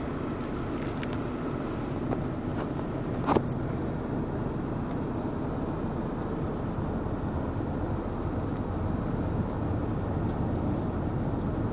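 Steady engine and road noise inside a moving vehicle's cabin, with tyres running on a snow-covered road. A brief sharp sound comes about three seconds in.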